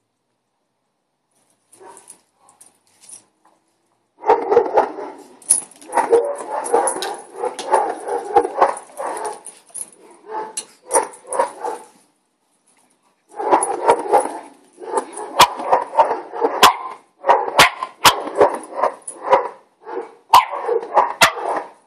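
Neighbouring dogs barking in a fast, continuous volley that starts a few seconds in and pauses briefly around the middle. Several sharp clicks come in the second half.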